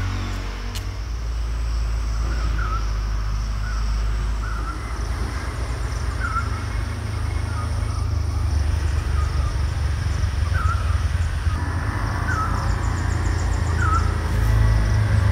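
A bird giving a short call over and over, about once a second, over a steady low rumble.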